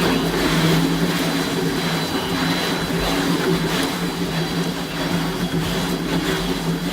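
Planetary concrete mixer running while mixing UHPC with steel fibre: a steady machine hum over a constant hiss.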